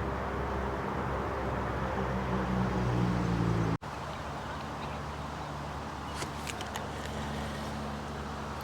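An engine hum whose pitch rises slowly, broken off abruptly about four seconds in, then a steadier engine hum with a few faint clicks.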